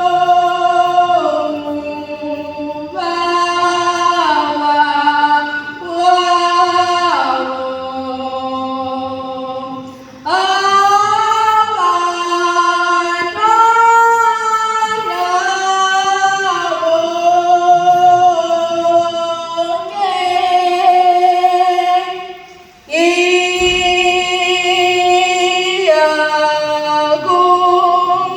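Female voices singing a song in long held notes, in phrases that break off briefly about ten seconds in and again near 23 seconds.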